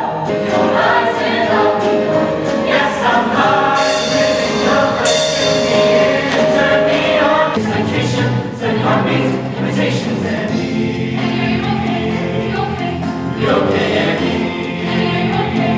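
Mixed show choir of men and women singing together in several parts, holding a long chord for a few seconds before the music changes about halfway through.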